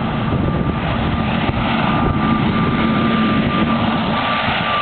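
Twin-engine turboprop plane on low final approach, its engines and propellers droning steadily with a high steady whine over a dense rumble.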